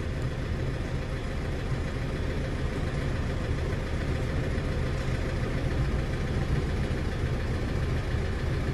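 Ford Fiesta diesel engine idling unevenly, heard from inside the cabin: it is misfiring, which the mechanic puts down to two injectors not working.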